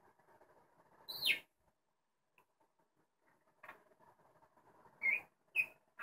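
Pet budgerigars chirping: one louder sweeping call about a second in, then short chirps, twice near the end, over faint soft chatter.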